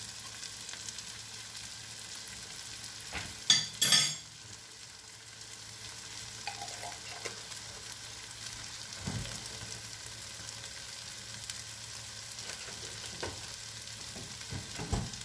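Shrimp fry with sweet onion, tomatoes and pepper sizzling steadily in a frying pan on an electric stove burner. Two sharp knocks break in about three and a half to four seconds in.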